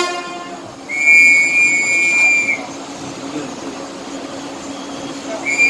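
Train horn giving a shrill, steady high-pitched blast of about a second and a half, with a second blast starting near the end, over the rumble of the moving train.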